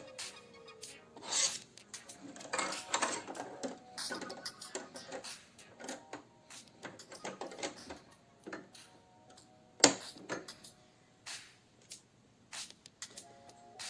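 Irregular clicks and rustles of hands handling and adjusting a sewing machine, with one sharp click about ten seconds in. Faint background music.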